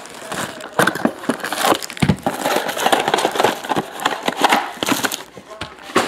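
Plastic shrink wrap being torn and crumpled off a trading-card box: a dense run of crinkling crackles, with a low thump about two seconds in.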